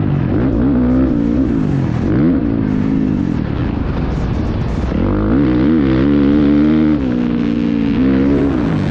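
Motocross bike engine heard from an onboard camera, revving up and down as the throttle is worked through the corners and jump faces. Its pitch rises and falls repeatedly, with a drop about seven seconds in.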